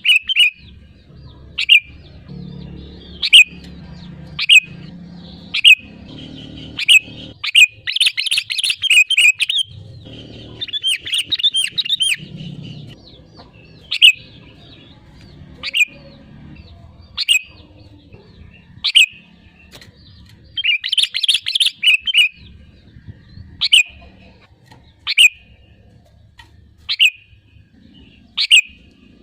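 Sooty-headed bulbul (kutilang) calling. Sharp single chirps come about every one and a half seconds, broken by several quick chattering runs of notes.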